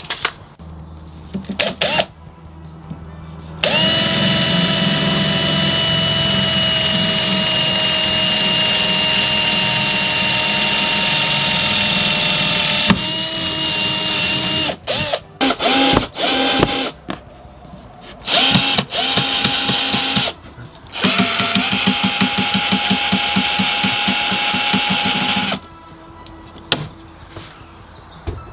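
Cordless drill boring a hole for a knob in a painted wooden cabinet door: one long steady run of about nine seconds, then four shorter bursts, the last with a fast regular chatter.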